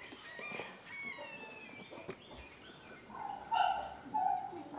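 Two short animal calls in quick succession about three and a half seconds in, preceded by faint high chirping.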